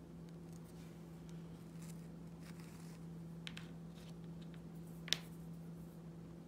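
Faint handling of small miniature wardrobe kit pieces being set down on a cutting mat, with a few light clicks and one sharp click about five seconds in, over a steady low hum.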